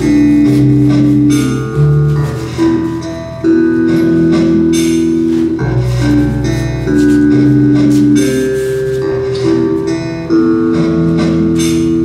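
Instrumental music with held low notes and repeated struck notes over them.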